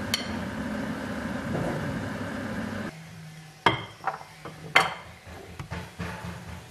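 Oil sizzling around azevias (filled pastries) deep-frying in a pan. About three seconds in the sizzle drops away, and a metal slotted spoon knocks against the pan several times, two sharp clinks loudest.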